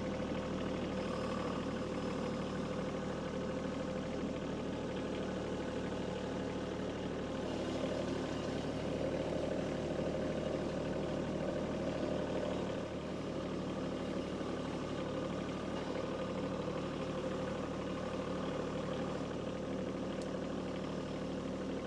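Kubota B2301 compact tractor's three-cylinder diesel engine running steadily, a little louder for a few seconds around the middle.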